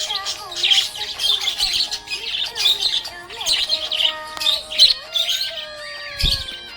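Budgerigars chirping and chattering in a fast, continuous stream of short high chirps and warbling whistles, with a low thud near the end.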